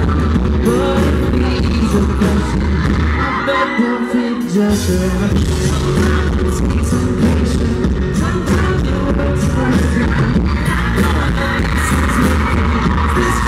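A live band plays loudly over a venue PA while a lead vocalist sings over guitar, bass and drums, heard from within the audience. About three and a half seconds in, the bass drops out for about a second, then comes back.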